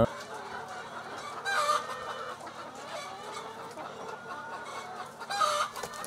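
A flock of brown laying hens clucking and calling all at once, with louder calls about a second and a half in and again near the end.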